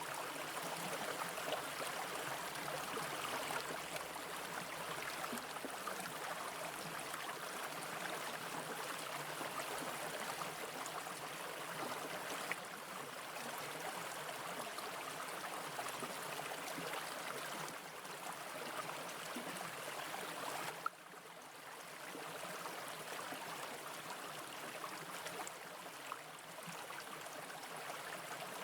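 Mountain brook water flowing steadily over rocks, a continuous rush, with two brief sharp clicks partway through.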